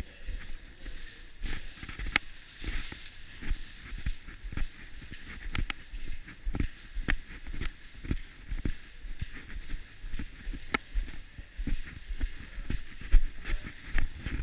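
Footsteps and handling knocks on a body-worn action camera while walking, including down a flight of stairs: irregular thuds and clicks about once or twice a second, the loudest a little before the end.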